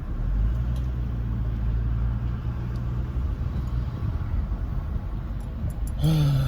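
Car engine and road rumble heard from inside the cabin as the car pulls forward, a steady low rumble that swells slightly about half a second in.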